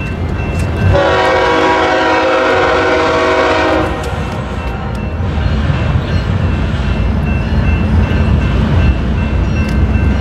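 Air horn of a BNSF freight train's lead locomotive, a GE ES44C4, sounding one long chord of several tones for about three seconds. The diesel locomotives then run with a low rumble that grows louder as the train approaches.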